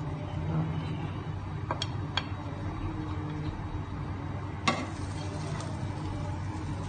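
Spatula and plate handling at a frying pan while a vegetable omelette is slid back into the pan to cook its other side: two light clicks about two seconds in, then a sharper knock about two-thirds of the way through, over a steady low hum and faint frying.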